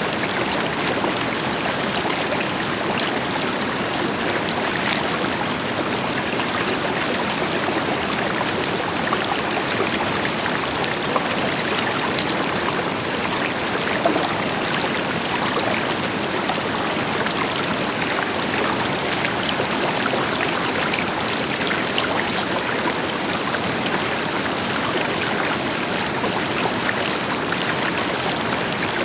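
A river flowing steadily over rocks, an even rushing and splashing with a deeper rush from a distant waterfall beneath it.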